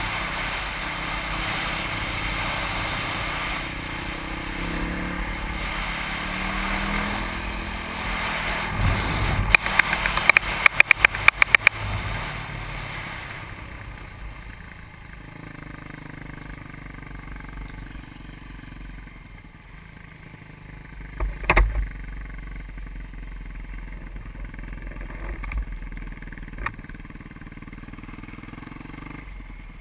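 Dirt bike engine with heavy wind rush on a helmet-mounted microphone at road speed, the engine note rising and falling with the throttle; a quick run of sharp clicks comes about ten seconds in. The bike then slows and runs at a quieter, steadier low speed, with a single sharp knock a few seconds before the end.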